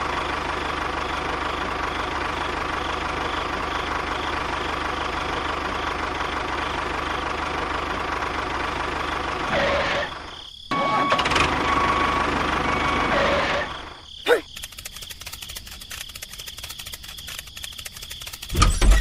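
A diesel-style tractor engine running steadily, cut off briefly about ten seconds in and running again until about fourteen seconds. It then gives way to a quieter, fast, even rattle of rapid clicks from a miniature rock drill, with a loud low thump near the end.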